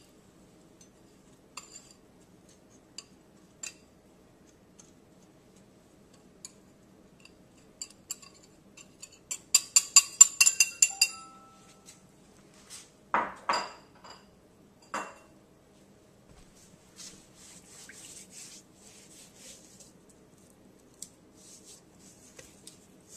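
A utensil clinks against a dish: scattered small clicks, then a quick run of about a dozen ringing clinks about ten seconds in, followed by three duller knocks, as dry spice rub is put onto raw pork ribs. A soft rustling follows as the rub is spread by hand over the meat.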